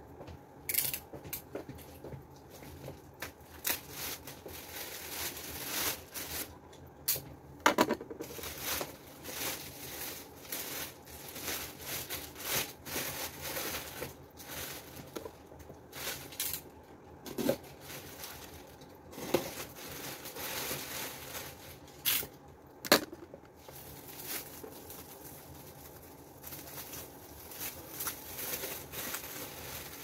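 Clear plastic wrap being pulled and crumpled off a fridge, crinkling and crackling irregularly, with a few sharp clicks and knocks, the loudest about eight seconds in and again just past twenty-two seconds.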